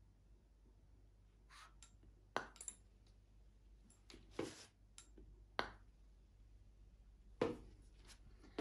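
Faint sharp clicks and knocks of a putting stroke on an indoor putting mat: the putter catches a wooden tee peg on the backswing and strikes the golf ball a little over two seconds in, followed by a few more isolated knocks as the ball runs to the hole end.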